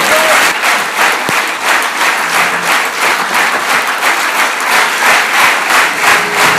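A theatre audience applauding loudly at a curtain call, the clapping swelling and falling about twice a second.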